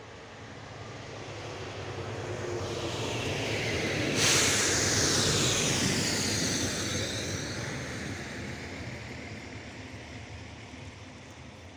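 SA139 diesel railcar approaching and passing close by at speed: engine and wheel-on-rail noise grow steadily, rise sharply about four seconds in as it goes past with a rush of air and falling whines, then fade away as it runs off.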